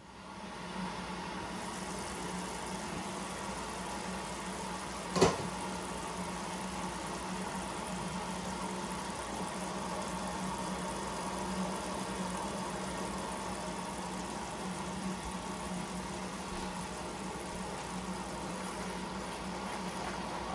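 Red lentils and onion-berbere base cooking in a hot pot on an electric stove: a steady sizzling hiss with a low hum under it, and a single sharp knock about five seconds in.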